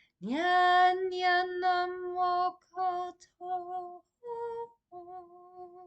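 A woman's solo voice toning wordless chant syllables. It slides up into a long held note, then moves through shorter sung syllables, mostly on that same pitch with one a step higher.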